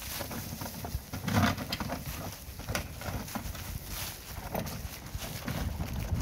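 A hand-pulled ground-penetrating radar cart moving over asphalt: irregular clacks and rattles from its metal frame and antenna skid plates, over a low rumble.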